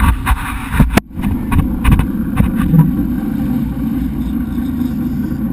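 Boat engine running with a steady low rumble that comes in about a second in, after a few sharp knocks.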